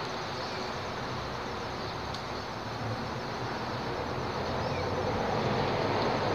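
Steady rumble of road traffic on the highway bridge overhead, swelling a little toward the end.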